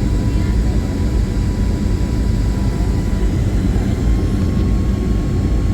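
Steady roar of a jet airliner heard from inside the passenger cabin in flight, a loud low rumble with a faint steady whine above it.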